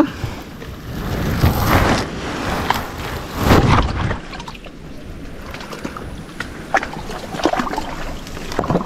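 Shallow muddy water sloshing and splashing as people wade through it, in uneven surges with the loudest about three and a half seconds in, and scattered small clicks.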